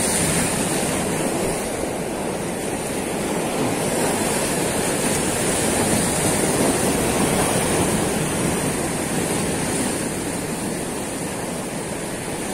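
Sea surf breaking and washing over shoreline rocks: a steady rushing wash that swells a little partway through.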